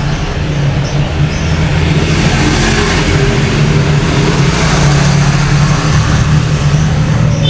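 Motorcycle engine running steadily on the move, with wind rushing over the microphone; the engine note rises slightly around the middle.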